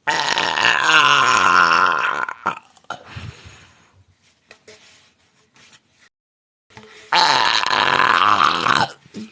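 Two long, loud belches by a woman, each lasting about two seconds, the second coming about five seconds after the first.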